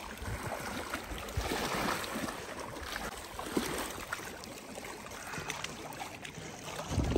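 Water lapping and gurgling, with small scattered splashes and ticks.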